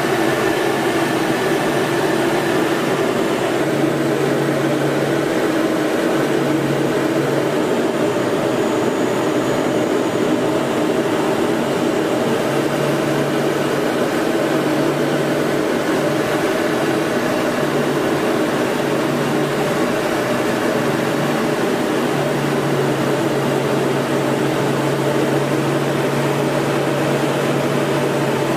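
Steady engine and airflow noise inside a military training aircraft's cockpit in flight, with a low hum that comes and goes in stretches.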